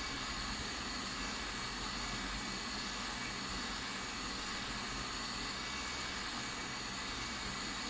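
Hot-air rework gun of a Soldron 858D station blowing steadily, its fan on a medium air setting, a constant even rush of air as it heats and dries a phone circuit board.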